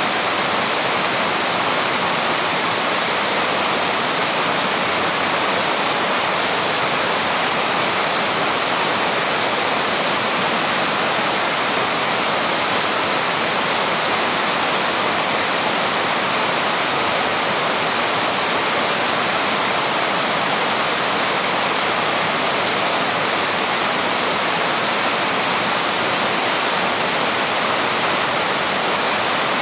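Waterfall rushing steadily, a continuous even roar of falling water.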